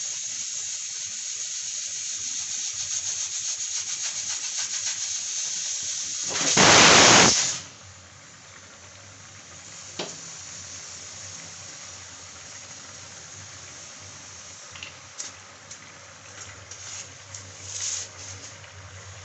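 Chickpea curry boiling in a steel frying pan on a gas burner: a steady hiss, then a loud rushing burst lasting about a second, then quieter bubbling with scattered small pops.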